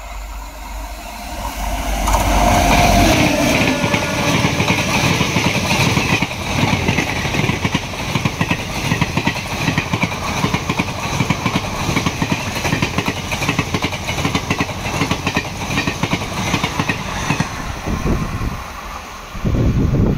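An express train hauled by a WAP-7 electric locomotive passing close at speed, its ICF coaches' wheels making a rapid, continuous clickety-clack over the rail joints. The sound builds in the first two seconds, holds for about sixteen seconds and eases off, followed by a brief loud burst just before the end.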